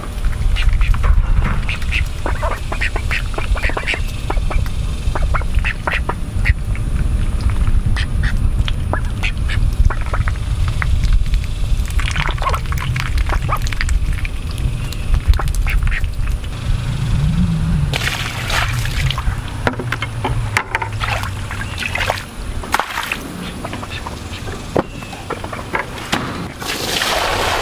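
Domestic ducks quacking and dabbling for bugs in the wet mud where their water container was just dumped. Near the end, water pours from a metal bucket into a pan.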